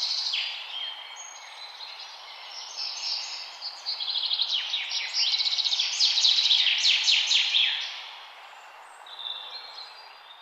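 Nature ambience of many small birds chirping and trilling over a steady background hiss. The chorus is busiest in the middle and thins out and fades near the end.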